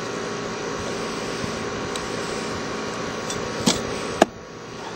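Wire strippers working the insulation off the conductors of electrical cable: a steady rustle over a low hum, then two sharp clicks near the end.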